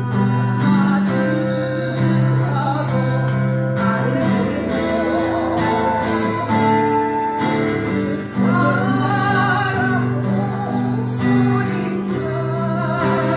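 Flute playing a slow ballad melody in held notes, some with vibrato, over a strummed acoustic guitar backing.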